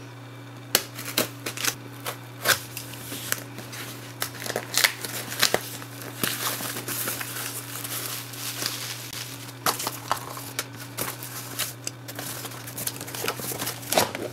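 Cardboard shipping box being opened by hand: a box cutter slitting the packing tape, then cardboard flaps scraping and packing material crinkling as it is pulled out, with many small clicks and knocks. Near the end the plastic cube cases slide out of the box onto the desk. A steady low hum runs underneath.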